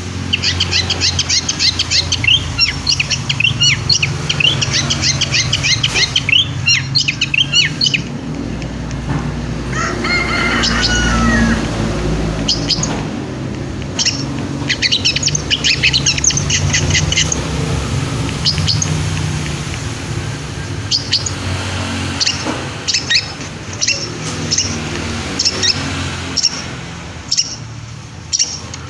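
Long-tailed shrike singing in spells of rapid, high chattering chirps with short pauses between, over a steady low background hum.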